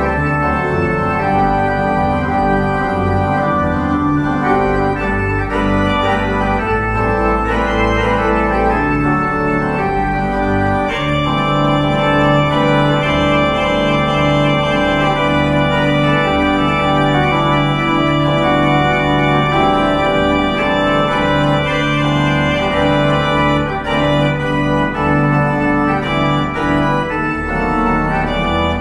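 Organ music: sustained chords shifting every second or so over low bass notes.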